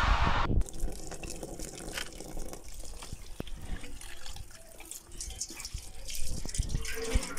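Water splashing and dripping as cut carp pieces are tipped with their rinse water from a steel bowl onto a bamboo tray, with small irregular clicks and splashes that grow a little louder near the end.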